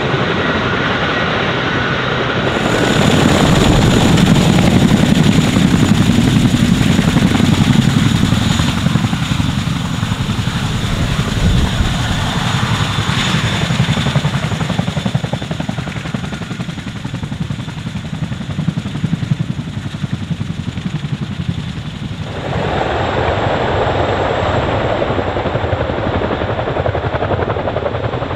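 Boeing CH-47F Chinook tandem-rotor helicopters running: a fast steady beat of the rotor blades under the high whine of their twin turboshaft engines. The sound shifts abruptly twice, about two and a half seconds in and again about 22 seconds in.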